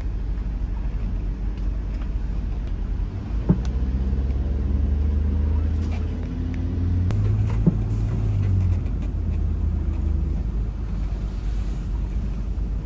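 1989 Eagle bus conversion's engine running under way with road noise in the cab: a steady low drone. The engine note rises and strengthens a few seconds in, then eases back off near the end. Two sharp clicks are heard along the way.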